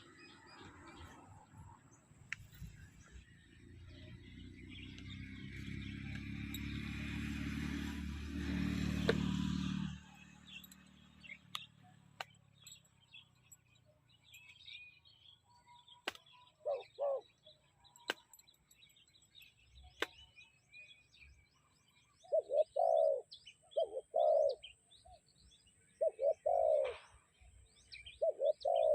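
Mixed forest birdsong with scattered high chirps. A dove coos repeatedly in short, loud phrases through the second half. In the first third, a low rumble builds and then cuts off abruptly about ten seconds in.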